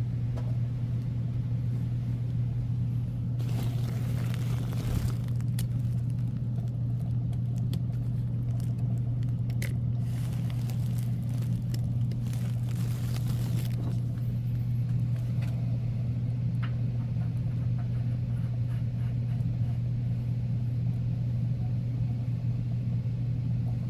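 A steady low mechanical hum throughout. Twice, a few seconds in and again near the middle, it is joined by a couple of seconds of scraping and rustling, with a few sharp clicks, from work on the pipe fittings.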